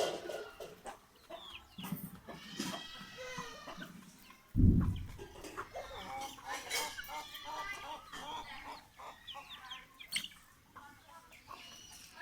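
Aseel chickens clucking and calling in short, scattered calls, with one loud dull thump about four and a half seconds in.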